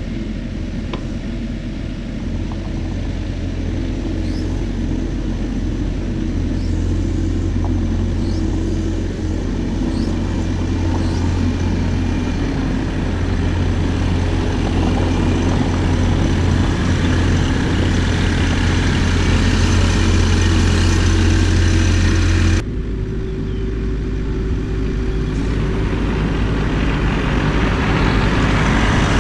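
Bobcat E42 mini excavator's diesel engine running steadily as the machine travels on its tracks, a strong low hum that grows louder as it comes closer. The sound changes abruptly about three quarters of the way through.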